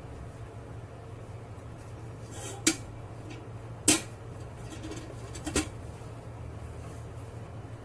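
A metal loaf pan knocks three times against a wire cooling rack as the freshly baked loaf is turned out of it, the second knock the loudest. A steady low hum runs underneath.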